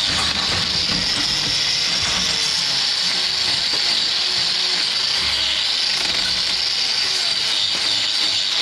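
A power tool running continuously with a steady high-pitched hiss.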